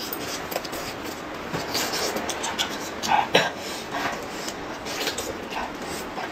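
Close-up eating sounds: a woman chewing and smacking her lips while pulling cooked chicken apart with her hands, as a string of small wet clicks with a louder burst a little past three seconds in.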